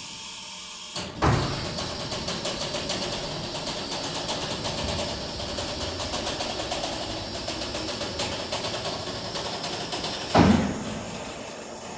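Homemade garage lift built from an electric hydraulic walk-behind forklift, lowering its caged platform. A clunk about a second in starts a steady mechanical running sound with a fast flutter in it. It ends with a thud as the platform settles near the floor, about ten seconds in.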